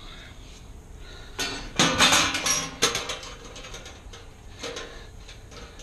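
Metal clattering and rattling as the small interlock slide plate and the metal electrical panel cover are handled and fitted together: a dense run of rattles and clicks about one and a half seconds in, then a few lighter clicks near the end.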